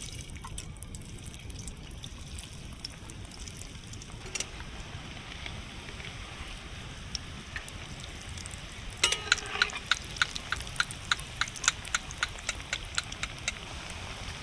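Vegetable chops deep-frying in hot oil in a metal kadai: a steady sizzle and bubbling. From about nine seconds in, a run of sharp metallic clicks, about three a second, as a metal spatula knocks against the wok while turning the chops.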